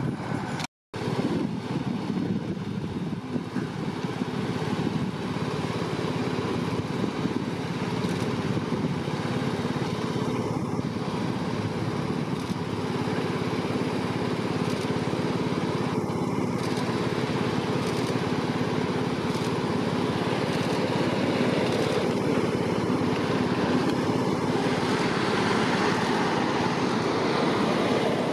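Engines and tyre noise of a slow-moving motorcade with its police escort driving past, a steady mix that grows slightly louder toward the end.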